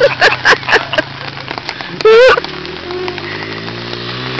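Small trail motorbike engine running while the bike is ridden on wet mud, its pitch shifting with the throttle. A loud, sharp shout breaks in about two seconds in, after a quick run of short, loud bursts in the first second.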